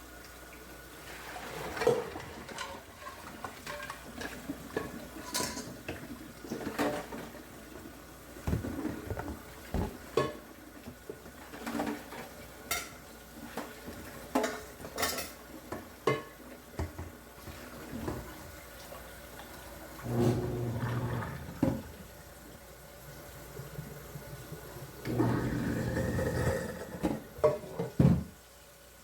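Dishes, pots and cutlery clinking and knocking as they are handled and put away, with two short stretches of running water.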